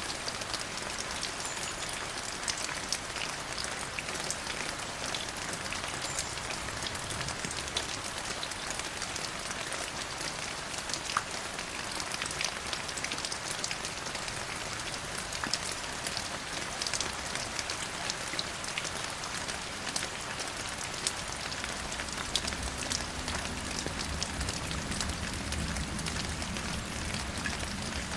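Steady rain falling, with many individual raindrops ticking sharply on a hard surface over an even hiss. A low rumble swells in during the last several seconds.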